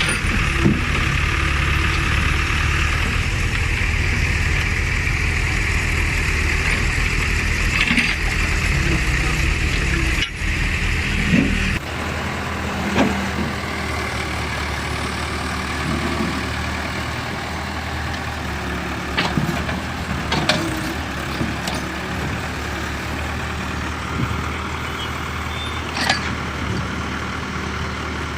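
Diesel engine of a backhoe/excavator running steadily, with scattered short clanks as the machine works. About twelve seconds in the sound changes abruptly and the deep rumble drops away.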